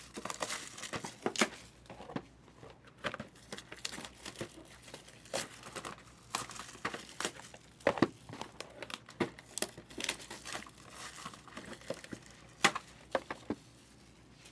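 Plastic shrink wrap crinkling and being torn off sealed trading-card hobby boxes, with irregular sharp clicks and taps of cardboard and packs being handled.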